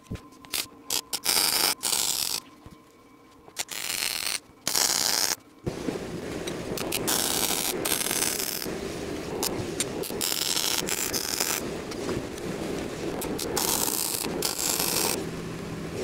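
Wire-feed MIG welder arc crackling on steel: a few short bursts at first, then steady welding from about six seconds in.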